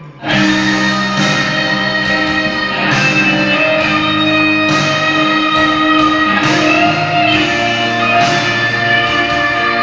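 Guitar music: sustained chords that change about every second and a half.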